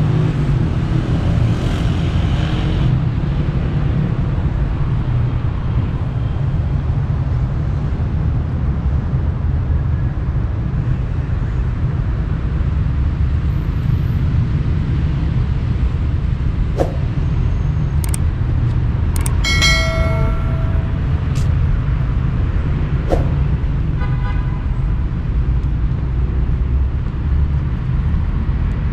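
Steady low rumble of city street traffic. About two-thirds of the way in, a car horn honks for about a second, followed a few seconds later by a fainter horn, with a few sharp clicks around them.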